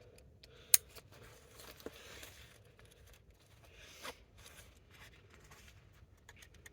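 Nylon fabric and webbing straps of a hunting waist pack rustling and scraping as the pack is handled and cinched. There is a sharp click about a second in and a few softer clicks later.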